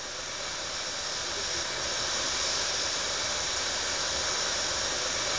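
Steady hiss of escaping steam from a live-steam model of a New York Central Niagara locomotive, building slightly over the first couple of seconds and then holding.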